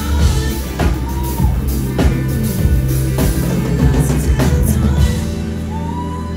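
Live band music with a drum kit keeping a steady beat over heavy bass; the drums drop out about five seconds in, leaving a held low bass note.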